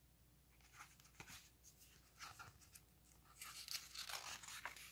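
Faint rustling and handling of a hardcover picture book's paper pages as a page is turned, with soft scattered crinkles that grow louder and busier about three and a half seconds in.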